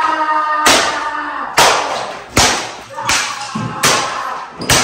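Baseball bats and a sledgehammer smashing electronics and wood scraps on a wooden cable-spool table: a run of sharp crashing blows, about one a second, six in all.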